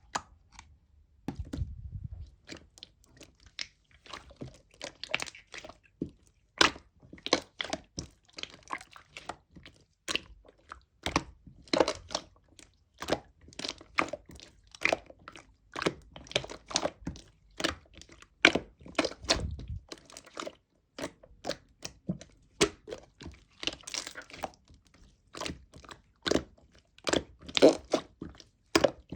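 Hands playing with slime, a dense irregular run of sharp sticky clicks and pops, several a second. The slime has partly melted, which the owner finds makes it play poorly.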